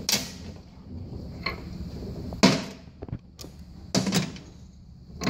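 A few sharp metallic knocks and clanks as a manual transmission's gears, shafts and tools are handled during disassembly, the loudest about halfway through.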